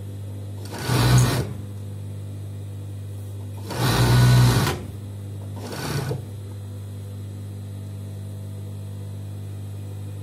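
Industrial overlock machine stitching in three short runs, the middle one longest at about a second and the last one brief, as elastic is sewn onto a skirt waist. A steady low hum carries on between the runs.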